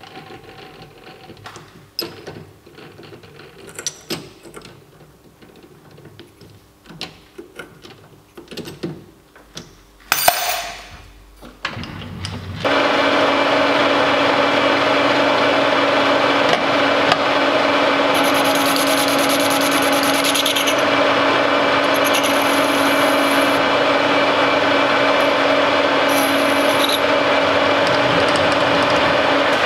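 Metal clicks and knocks as a workpiece is set and tightened in a metal lathe's three-jaw chuck, with one ringing metal clank. Partway through, the lathe starts and runs steadily with a hum and whine from its motor and gears.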